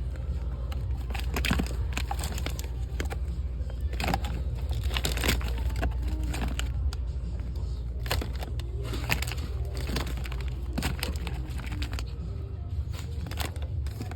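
Indoor store ambience with a steady low rumble. Scattered clicks and rustles come from merchandise and packaging being handled close to the microphone, with faint music or voices in the background.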